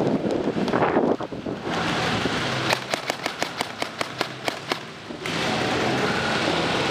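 Airsoft guns firing in an indoor arena: a quick run of about a dozen sharp cracks, roughly five a second, near the middle, over a steady hiss.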